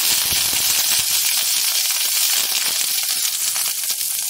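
Chopped onions and curry leaves sizzling loudly as they drop into hot oil in a stainless steel kadai with tempered mustard seeds and dals, a steady hiss with a few sharp pops.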